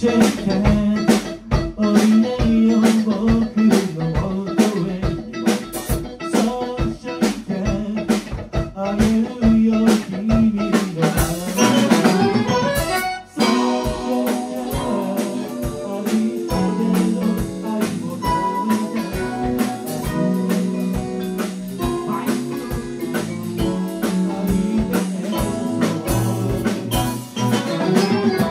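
A small band playing live: drum kit keeping a steady beat under electric guitar, electric keyboard and saxophone. A little after thirteen seconds in, the music rises and then drops out for an instant before going on.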